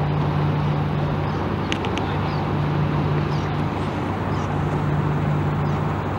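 Honda 50 hp four-stroke tiller outboard, a three-cylinder, running steadily at low idle speed with an even hum. A couple of short high chirps come about two seconds in.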